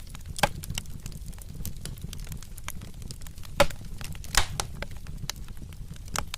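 Wood fire crackling in a fireplace: many small snaps over a low steady rumble, with three louder pops, about half a second in and twice in the second half.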